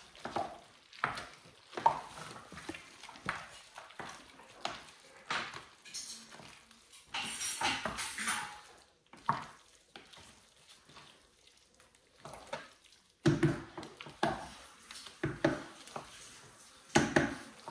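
A filling being stirred and mixed in a stainless steel pot: irregular scrapes and clinks of a spoon against the pot, about one a second, with a few louder knocks near the end.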